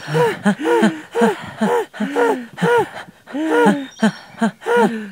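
A person's voice making a quick run of short, wordless, sing-song syllables that rise and fall in pitch.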